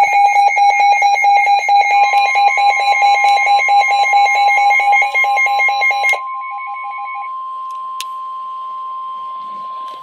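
Weather radio alert: a loud, rapid beeping alarm, several beeps a second, which stops about six seconds in, with a steady 1050 Hz NOAA Weather Radio warning alarm tone that comes in about two seconds in and holds on. It signals that a warning (here a severe thunderstorm warning) is about to be read.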